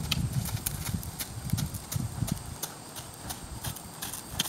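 Hoofbeats of a horse moving across sand footing: dull low thuds, stronger in the first half and fading after about two and a half seconds as the horse moves away.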